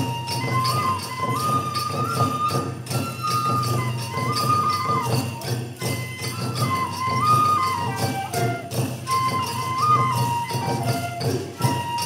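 Japanese folk festival music played live: a flute carries a melody of held notes that step up and down, over drums and constant jingling bells.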